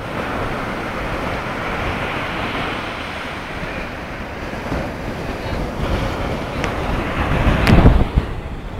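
Sea surf breaking and washing up a sandy beach in a steady rush. Wind buffets the microphone, growing gustier and louder near the end, with a sharp click just before it peaks.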